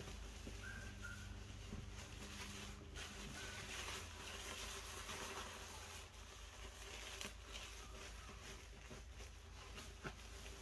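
Plastic-backed puppy pad and cotton blanket rustling and crinkling as they are handled and tucked in around the dog in a whelping bed.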